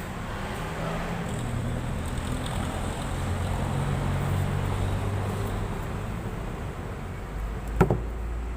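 Steady low rumble of background road traffic, with one sharp click near the end.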